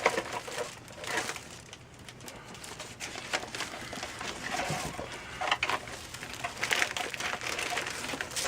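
Packaging being handled: irregular rustling and crinkling of paper and plastic, with a few light knocks.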